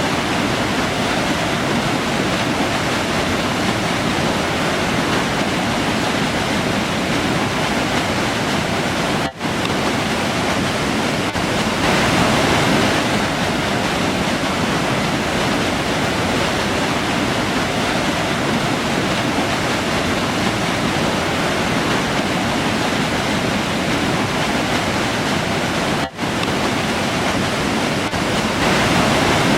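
Autumn forest river rushing steadily, a continuous roar of flowing water. The sound drops out for an instant twice, about nine seconds in and again near the end.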